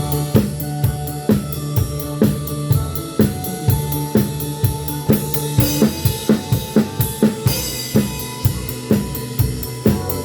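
Live band music: a drum kit with snare, bass drum and cymbals plays a steady beat, about two strokes a second, under held keyboard or saxophone notes.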